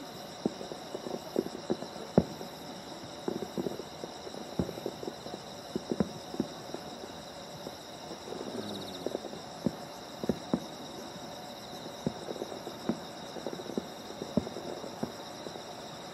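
Fireworks bursting and crackling: irregular sharp pops and bangs, sometimes several a second, over a steady high-pitched hum.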